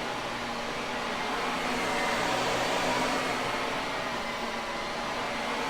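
Shark vacuum cleaner running steadily, its motor whirring under a rush of air, with a faint wavering whine riding on top.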